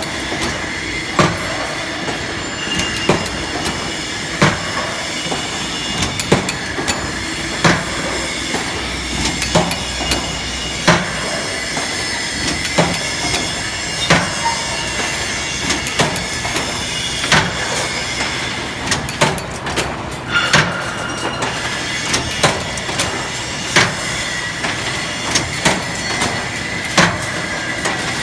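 Automatic hinge joint fence machine running: a steady mechanical clatter from its chain drives and wire-working heads, with a sharp clank repeating about every second and a half.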